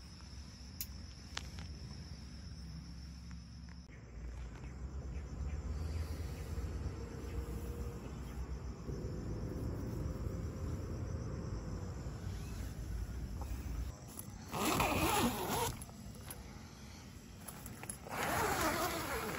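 A tent door zipper being pulled open in two short rasping strokes about three seconds apart, over a low steady rumble.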